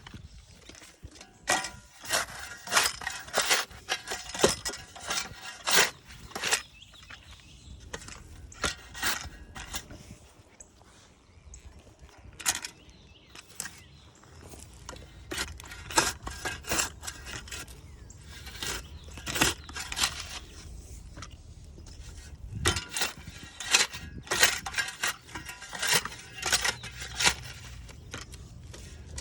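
Shovel digging a shallow planting hole in soil: repeated irregular chops and scrapes, in clusters separated by short pauses.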